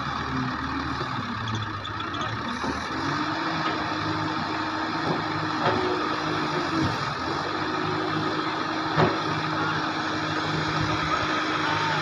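Hitachi wheeled excavator's diesel engine running steadily under hydraulic load as the boom and bucket push against the ground to lift the sunken machine. The engine note sags briefly about seven seconds in and then recovers, with a couple of short knocks from the machine.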